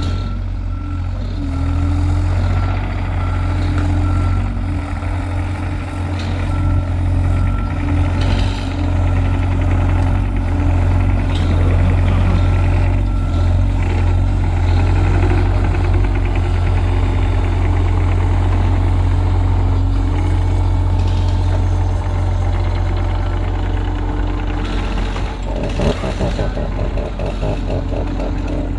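Heavy machine's diesel engine running steadily, with an evenly repeating warning beep through the first half.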